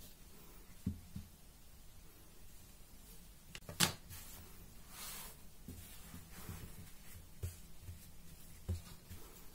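Quiet handling of bread dough on a silicone baking mat: soft thumps as a dough scraper cuts through the dough and hands press it flat, with one sharp click about four seconds in and a brief brushing hiss just after.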